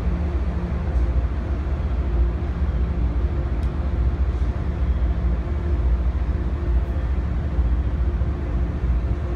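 Diesel locomotive engines running, a steady low rumble with an even hum.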